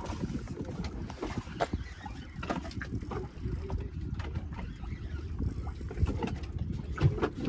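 Wind buffeting the microphone and sea water lapping against a small boat's hull, with scattered light knocks and clicks.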